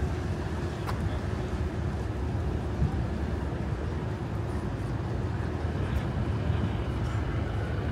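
Steady low rumble of boat engines on the harbour, with a faint steady hum over it.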